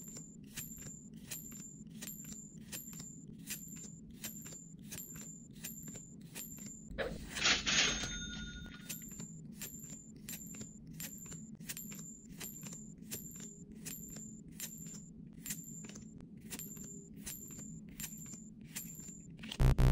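A rapid, even run of short clicks, nearly three a second, each with the same bright high ding, as one trading card after another is shown. About seven seconds in, a louder swishing chime breaks the run, and the run ends with a loud thump.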